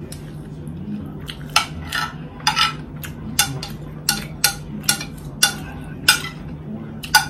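Metal spoon clinking and scraping against a plate, about a dozen sharp taps at uneven intervals as it cuts into a hamburger patty and rice, over a steady low hum.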